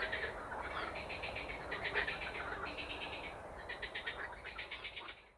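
Night-time chorus of chirping insects in a maize field, crickets or bush-crickets giving rapid trains of high pulses in overlapping groups. It fades out near the end.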